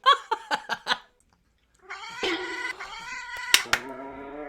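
A cat's long drawn-out yowl that wavers in pitch, after a few short voice-like sounds in the first second.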